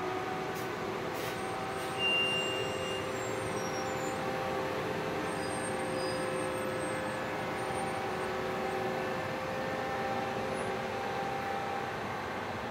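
Freightliner M2 106 sweeper truck with its Johnston RS655 sweeper running as it drives slowly past, a steady mechanical hum with several held tones. A brief high squeal comes about two seconds in.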